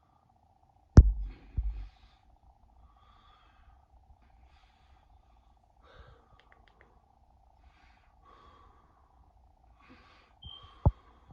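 A man breathing hard after a set of crunches, a few slow breaths a few seconds apart. A loud thump comes about a second in, and a sharp knock near the end, over a faint steady hum.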